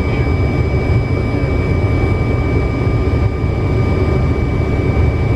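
Steady flight-deck noise of a Fokker 100 airliner in flight: a loud, even rumble of engines and airflow with thin high tones held steady over it.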